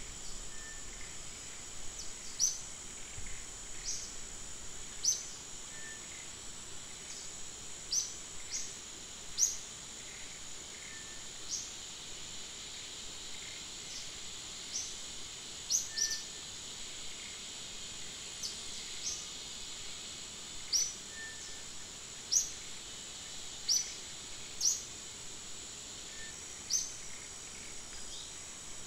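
Forest ambience: a steady, high insect drone, with a bird's short, high chirps repeated every second or two.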